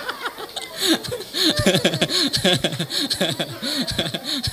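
A man laughing into a handheld microphone: a long run of short chuckles, one after another.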